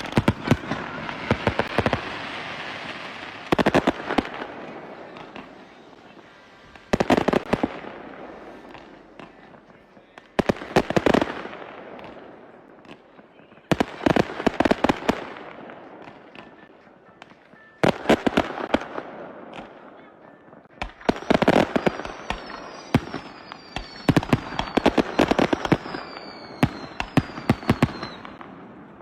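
Fireworks display: volleys of aerial shells bursting with sharp bangs and trailing crackle, a new volley every three to four seconds. In the last third, several whistles fall in pitch among the bursts.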